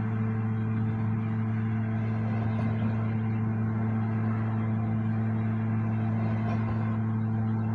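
Lawn mower engine running at a steady speed, a constant unchanging drone.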